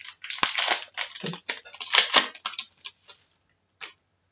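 A Yu-Gi-Oh! booster pack's foil wrapper being torn open: a quick run of crinkling rips, thinning to a few light ticks near the end.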